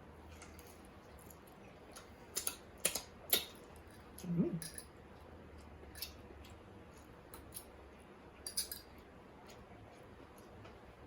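Eating sounds into a close microphone: scattered sharp clicks and smacks of chewing, several together around two to three seconds in and again near the end. There is a short low hum about four seconds in.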